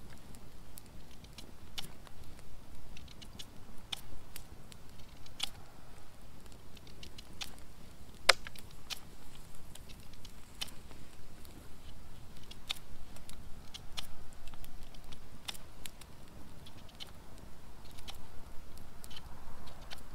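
A run of irregular sharp clicks and pops, roughly one or two a second, the loudest about eight seconds in, over a low steady rustle.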